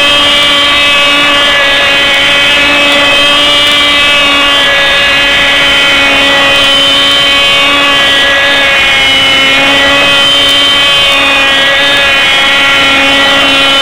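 Cox .049 two-stroke glow engine of a tether-run model car running flat out with a steady high-pitched buzz, its pitch and loudness wavering slightly as the car circles on its tether.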